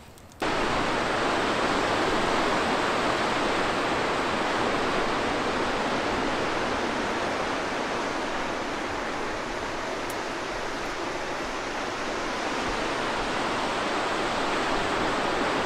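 Steady rushing of surf breaking on a sandy beach, starting abruptly about half a second in.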